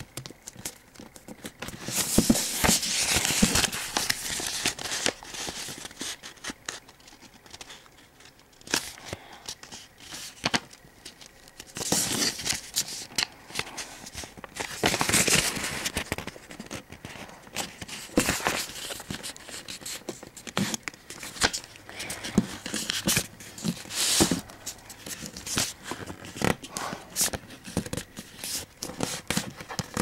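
Sheet of paper being folded and creased by hand: rustling and crinkling in irregular bursts every few seconds, with sharp little creasing clicks.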